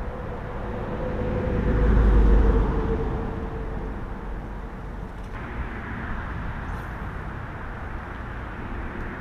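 Steady rush of a flowing creek, with a low rumble that swells and fades about two seconds in.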